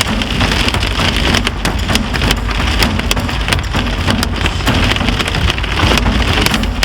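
Hail and rain hitting a car, a dense hiss with many sharp ticks of single stones, over the low rumble of the car on the road.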